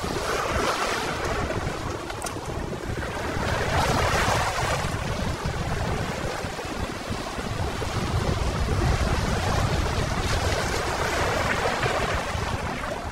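Small sea waves washing over shoreline rocks, swelling and easing several times, with wind rumbling on the microphone.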